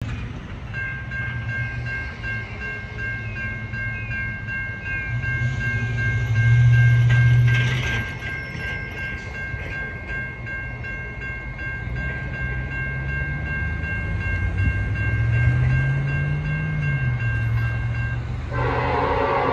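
Grade-crossing electronic bell ringing steadily with a pulsing chime, over a low rumble that swells twice. About a second before the end, the approaching Norfolk Southern freight locomotive's horn starts sounding loudly.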